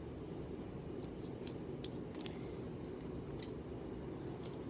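Faint scattered plastic clicks from a toy Nerf blaster being handled as darts are loaded, over a steady low room noise.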